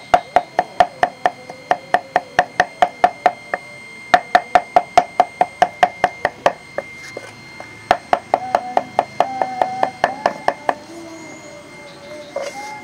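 Machete chopping chicken meat and bone on a round wooden chopping block, mincing it into small pieces. Quick even strikes come about three or four a second, in three runs with short pauses between them, and stop about two seconds before the end.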